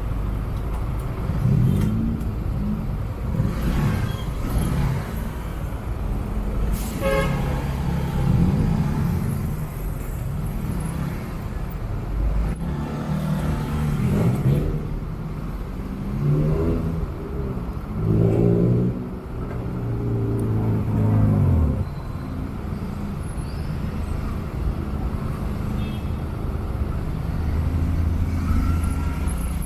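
Dense, slow city traffic heard from a motorcycle: engines running and revving up and down nearby, with a car horn tooting.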